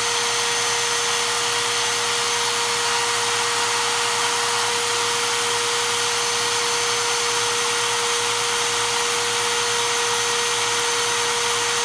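Milwaukee M18 Fuel Gen 3 hammer drill's brushless motor running unloaded at full speed: a steady whine over an even rush of air. The drill is overheating with no load on the chuck, which the owner takes for a defect.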